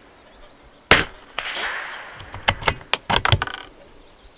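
A single shot from a scoped .22 rimfire bolt-action rifle about a second in. It is followed by a run of sharp metallic clicks and rattles lasting about two seconds as the bolt is worked.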